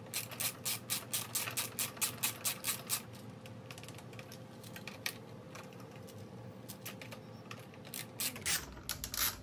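Ratcheting screwdriver with a hex bit clicking as it drives in the bolts of a motorcycle fender eliminator bracket: a quick, even run of clicks for about three seconds, a pause, then another run near the end.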